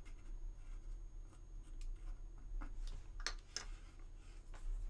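A stiff, glue-hardened brush scraping and tapping over the seam of a resin model as powder and super glue are worked in: a few faint, short scratches and clicks over a low steady hum.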